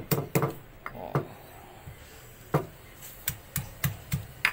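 Pestle pounding garlic, shallots, chillies and dried anchovies into sambal in a mortar: a run of sharp strikes, a few irregular ones at first, then after a short lull a steady beat of about three to four a second.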